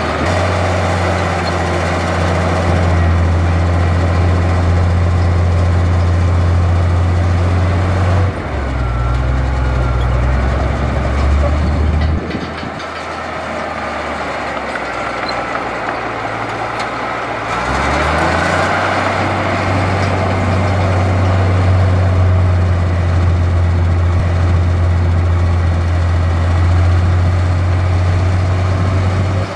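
Heavy diesel engine of an earthmoving machine running under load, its low note steady at first, dropping in pitch about eight seconds in and easing off around twelve seconds. It revs back up near eighteen seconds and holds steady again.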